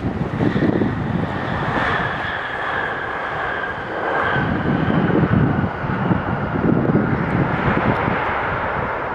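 Jet airliner engines passing, a whine slowly falling in pitch over a loud, gusty low rumble.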